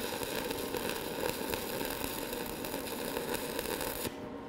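Stick-welding arc from a 1/8-inch 7018 electrode running at 145 amps, a steady crackling sizzle as a tack weld is laid on the steel plate; the arc breaks off about four seconds in.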